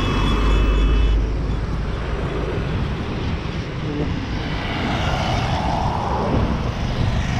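Road traffic on a highway: vehicles driving past, one loud low rumble in the first second and another vehicle going by about five seconds in.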